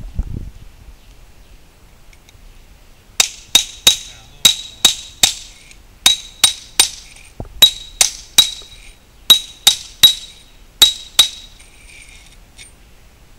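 A hammer striking a masonry chisel set on a concrete retaining-wall block: sharp metallic clinks with a ringing note, in quick sets of three, about seventeen blows in all, chipping at the block. A dull thud at the very start.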